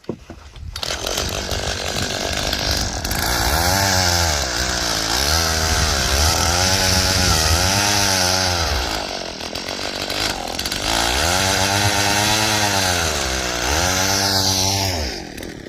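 Small gasoline engine revving up and down over and over, its pitch rising and falling in waves. It eases off briefly about two-thirds of the way in, revs again, then dies away near the end.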